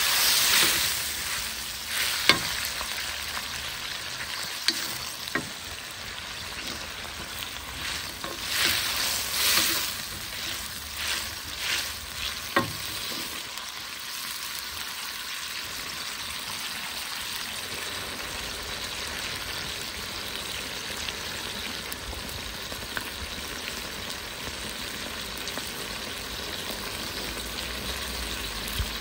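Chopped tomatoes, onions and chillies sizzling in a hot wok as they are stirred with a spatula, with a few sharp clicks of the spatula against the pan in the first half. About halfway through the stirring stops and a steadier, quieter sizzle carries on.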